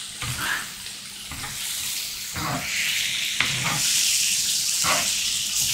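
Chicken pieces in sauce sizzling on a tabletop electric griddle, the hiss growing louder about halfway through, with several short scrapes and taps of utensils against the plate as the chicken is stirred and turned.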